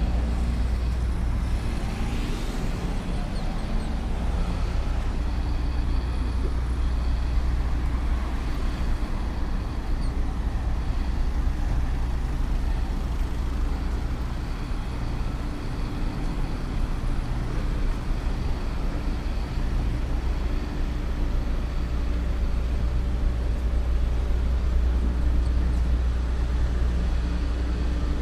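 Steady low rumble of engines and road traffic, with a faint steady hum over it.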